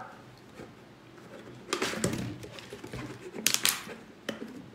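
A few brief rustles and light taps, like handling noise, the clearest about two seconds in and again about three and a half seconds in.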